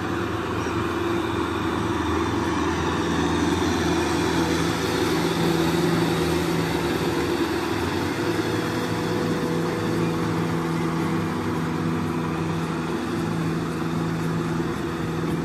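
Kubota M6040SU tractor's four-cylinder diesel engine running steadily under load as it pulls a rotary tiller through wet paddy mud.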